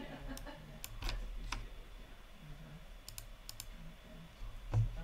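Sparse, faint clicks of typing on a computer keyboard, a few at a time, over a low steady hum.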